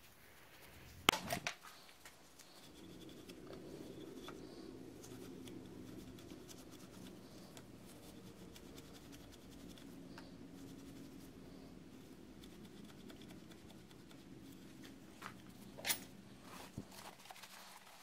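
Faint scratching and rubbing of steel wool on a pick scrubbing inside the bore of an outboard motor's choke solenoid, with a sharp click about a second in and another near the end, over a low steady hum.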